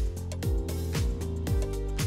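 Background music with a steady electronic beat: a kick drum about twice a second over sustained notes.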